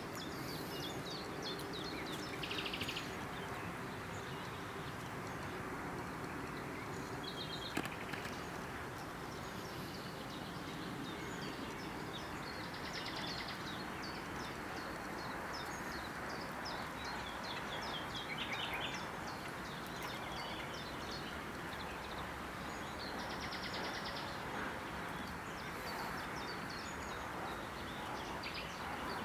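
Small birds chirping and singing over a steady rushing background hiss, with a few short buzzy trills and one sharp click a little before the eight-second mark.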